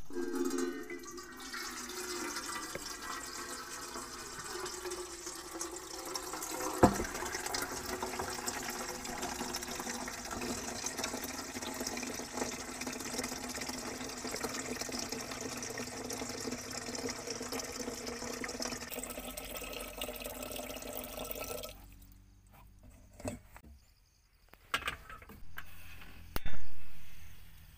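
Water pouring from a plastic jug into a stainless-steel kettle for about twenty seconds, with a single knock partway through, until the pour stops. A few small clicks follow, and near the end there is a loud click as the portable gas stove's knob is turned to light it.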